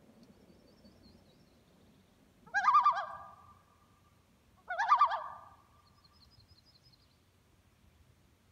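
Common loon calling twice, each call a short wavering, quavering cry about two seconds apart, the second as loud as the first.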